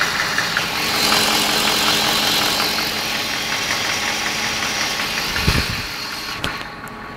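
BMW M60B40 4.0-litre V8 idling with a fast, regular ticking and knocking from the engine, the strange noise the owner is trying to trace. About six and a half seconds in there is a sharp click, and the sound drops off.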